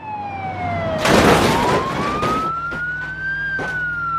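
Toy ambulance's electronic siren wailing slowly, its single tone falling, then rising and starting to fall again near the end. A burst of rattling noise comes about a second in, with a couple of sharp clicks later.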